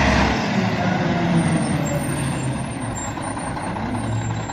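Heavy truck engine running, with a steady hissing noise over a low hum; the deepest part of the hum drops away a fraction of a second in.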